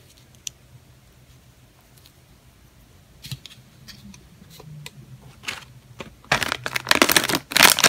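A few light taps of a small plastic figure set down on a table, then, from about six seconds in, a shiny foil blind bag crinkling loudly as it is handled and torn open.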